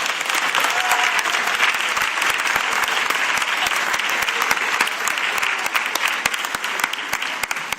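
Audience clapping: dense, steady applause from many hands.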